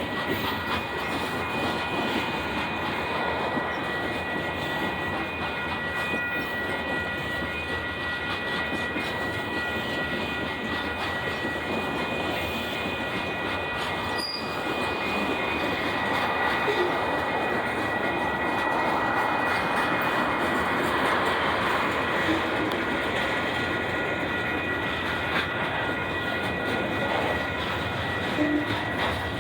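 Loaded freight cars of a long, heavy mixed freight train rolling past: a steady rumble of wheels on rail, with a thin, steady, high squeal from the wheels running over it.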